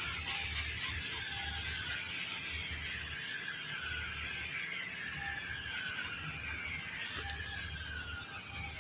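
Heavy rain falling, a steady hiss, under a low rumble and faint falling tones that repeat every second or two.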